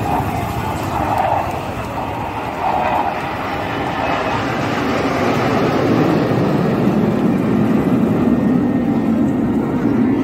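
Jet engines of three military jets flying past in formation: a loud, steady rushing noise that swells in the second half as they come closer.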